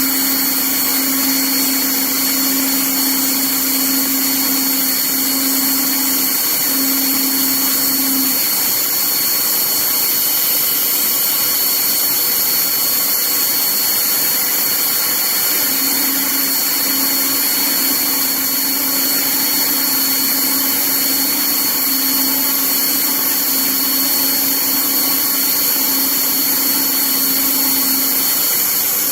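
Haas TM-2P CNC mill thread milling 8-40 screw holes with a small thread mill. The spindle runs with a steady high whine over a hiss. A low hum sounds for about the first eight seconds and again through most of the second half.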